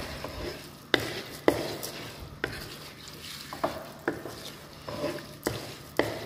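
Wooden spatula stirring whole brown lentils in a pan, scraping and knocking against the pan about eight times at uneven intervals, with a faint sizzle as the lentils roast in the spice masala before water is added.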